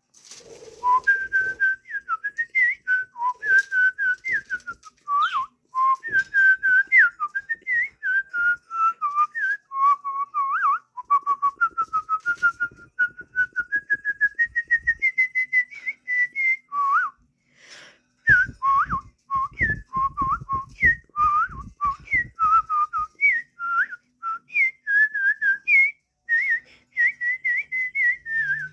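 A person whistling a lively tune with quick, darting notes, climbing step by step in pitch through the middle. Partway through, a run of soft knocks sounds under the whistling.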